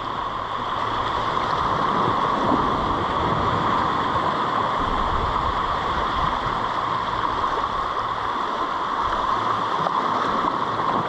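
Steady rush of sea water surging and washing over shoreline rocks, mixed with wind noise.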